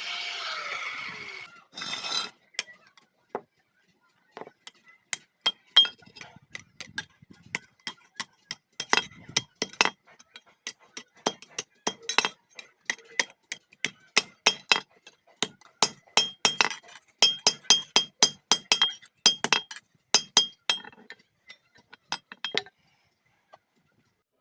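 Dozens of quick, light hammer strikes on metal, irregular and several a second, each with a bright metallic ring, stopping a couple of seconds before the end. Before them, a power tool's steady running noise cuts off about a second and a half in.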